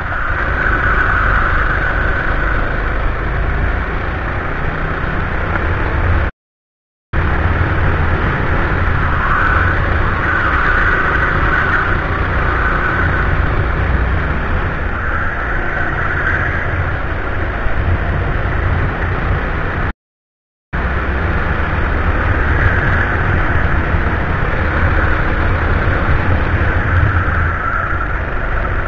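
Go-kart engine running hard as the kart laps the track, heard from the onboard camera. The sound drops out completely twice, each time for under a second, about six seconds in and about twenty seconds in.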